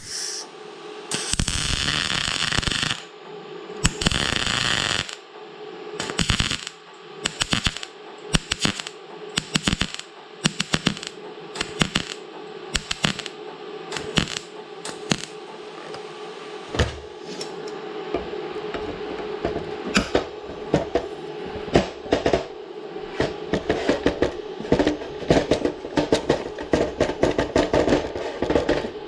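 MIG welder arc crackling in bursts while weld is built up on a broken bolt stub: two longer runs of a second or two near the start, then many short triggers and crackles that grow denser toward the end, over a steady welder hum.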